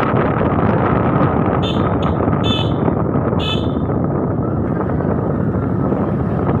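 Steady rushing wind noise on the microphone, with four short high-pitched chirps between about one and a half and three and a half seconds in.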